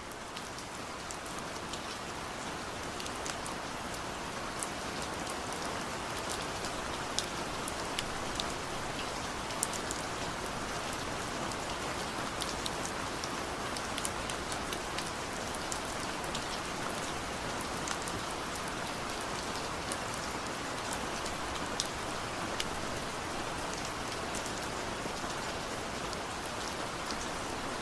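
Steady rain with scattered sharp ticks throughout.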